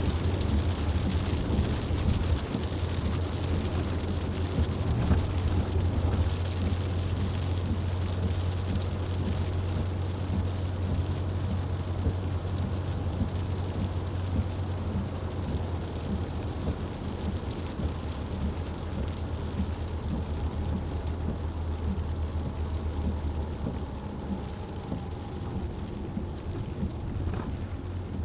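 Car driving in the rain: a steady low drone of engine and road noise with the hiss of rain and wet tyres.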